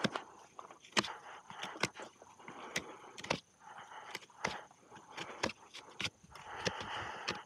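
Hoof knife paring horn from a horse's hoof: rough scraping cuts lasting about a second each, three or four times, with sharp clicks of the blade roughly once a second between them.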